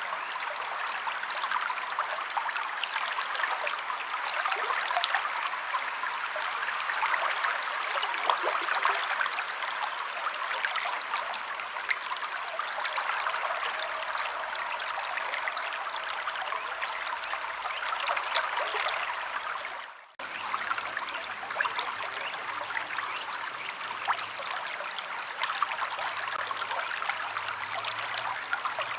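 River water flowing steadily, an even rush and trickle, with a few faint short bird chirps now and then. The water sound fades and drops out for a moment about twenty seconds in, then comes straight back.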